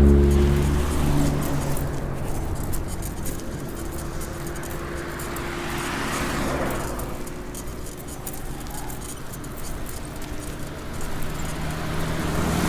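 Road traffic passing close by: cars and minivans driving past one after another, with engine hum and tyre noise. A vehicle passes loudly right at the start, the noise rises again around six seconds in, and another vehicle comes by loudly near the end.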